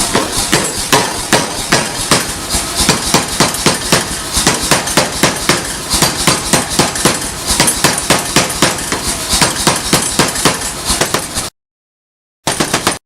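Steady hammering on a Damascus steel billet, sharp metal-on-metal blows about three a second, breaking off abruptly near the end into dead silence and short chopped-off bursts of the same blows.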